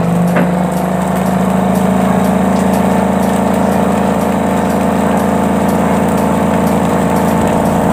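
Spin dryer's electric motor and basket starting up and running with a steady hum, rising slightly in pitch over the first couple of seconds as it comes up to speed. This is the dryer's test run after its rat-chewed wiring was replaced.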